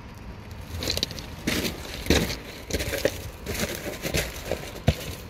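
Footsteps crunching on loose river pebbles, a step about every two-thirds of a second.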